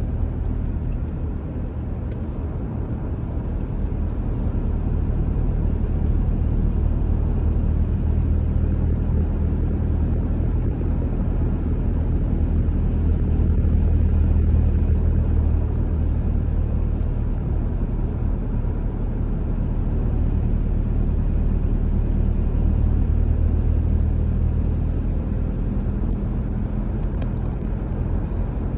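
Car driving at a steady speed: a continuous low rumble of engine and tyres on the road, with a steady low drone that swells and eases slightly.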